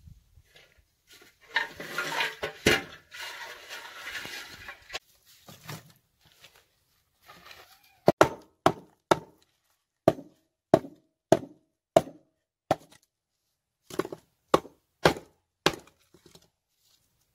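Dry firewood being handled in the firebox of a mud-brick stove: a few seconds of rustling and scraping, then a run of about a dozen sharp wooden knocks, roughly two a second.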